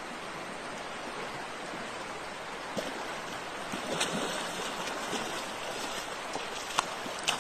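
Steady rush of a flowing river. From about three seconds in, a large fish thrashes and splashes in the shallows, with a few sharp slaps near the end.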